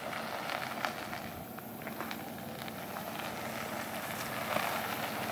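Lifted Nissan Terrano SUV's engine running low as it backs slowly over gravel, with small crunching ticks from the tyres and loose stones.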